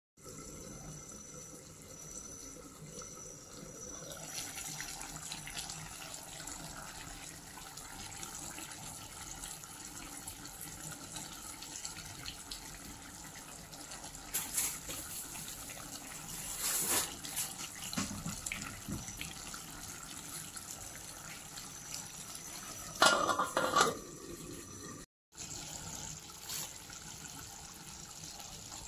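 A pot of eel curry simmering on a gas stove burner, giving a steady watery hiss. A louder sound about a second long comes near the end.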